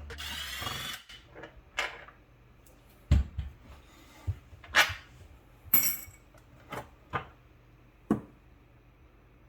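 Scattered sharp knocks and clicks of hand tools and loose parts inside a dishwasher tub, as screws are taken out of the bottom; the tail of background music ends about a second in.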